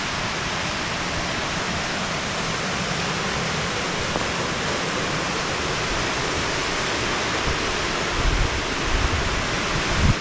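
Small waterfall rushing: a steady, full noise of falling water, with a few low bumps near the end.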